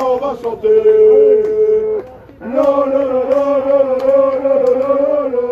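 Football supporters chanting in long, drawn-out held notes, with a short break about two seconds in before a longer wavering note.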